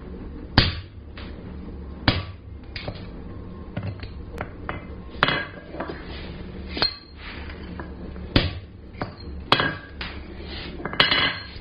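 Hammer blows on a hand punch driving screw holes through hot 3/8-inch square steel bar from the back side: sharp metallic strikes at uneven intervals, about one every second or two.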